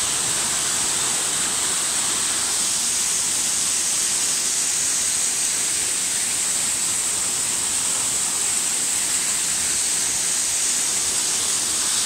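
Small rock-ledge waterfall: water pouring steadily over tiers of rock into a pool, an even, unbroken rushing.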